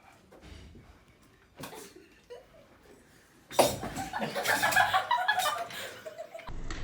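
Near silence with a few faint clicks, then, about three and a half seconds in, a sudden loud burst of laughter lasting about three seconds.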